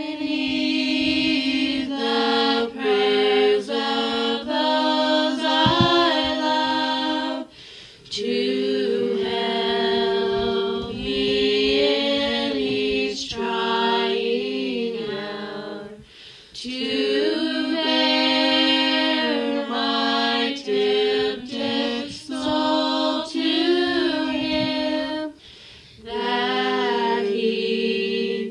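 Unaccompanied vocal group singing a gospel hymn in close harmony, in long held phrases with short breaks between them.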